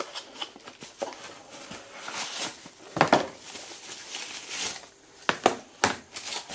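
Rustling and crinkling of a soft white wrapping sheet and cardboard box flaps as a clock is lifted out of its box and unwrapped, with a few sharper handling clicks and taps, the strongest rustle about three seconds in.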